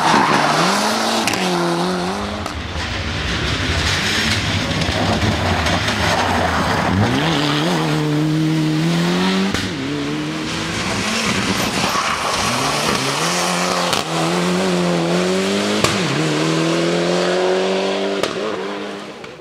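Mitsubishi Lancer Evolution IX rally car's turbocharged four-cylinder engine revving hard at full stage pace. Its pitch climbs and drops again and again through the gear changes, with a long climb near the end before it fades away.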